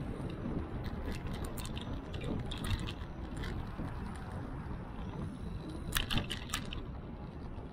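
A moving bicycle: steady rumble of wind and tyres, with light metallic rattles and clicks from the bike, loudest in a quick cluster about six seconds in.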